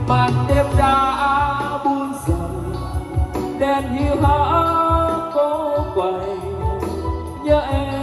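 A song with a heavy bass beat and a gliding melody, played back loud through BOSA T24N column ("rocket") speakers and subwoofers in a demo room.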